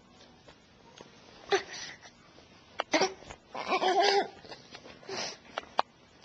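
Baby making short breathy grunts and one brief voiced coo about four seconds in, with a few small clicks and mouth sounds as she chews on a plastic TV remote.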